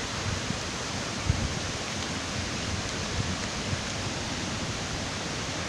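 Waterfall rushing, a steady even noise, with a few low thumps, one about a second in.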